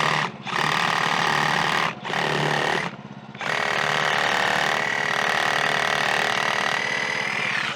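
Portable bandsaw mill (Woodland Mills HM130MAX) run up to full speed, its engine and band blade cutting into a pine log, in three stretches with short dips between, the last about four seconds long. It cuts off sharply near the end, back to idle.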